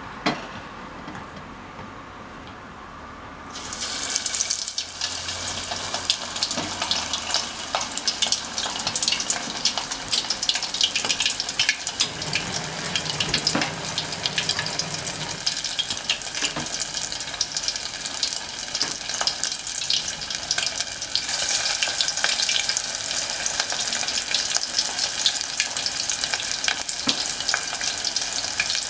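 Bone-in beef short ribs (kalbi) deep-frying in hot oil: a dense crackling sizzle starts suddenly about three and a half seconds in as the meat goes into the oil, and grows a little louder about two-thirds of the way through.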